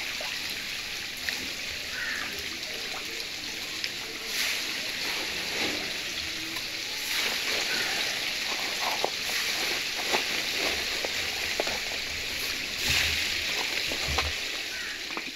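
Steady bubbling, fizzing hiss of water in an aerated biofloc fish tank, its surface churned by air lines and crowded fish, with scattered small splashes and sloshes.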